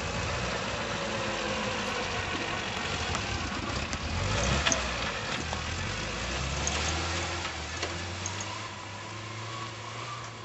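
Pinzgauer off-road truck's engine working under load as it crawls through deep snow, with the wheels churning the snow. The engine pitch shifts up and down, busiest about four to five seconds in, and eases off near the end.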